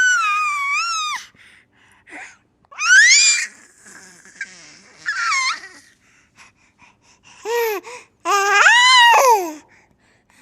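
A baby's high-pitched squeals and babbling, five or six separate calls that rise and fall in pitch, the longest one near the end.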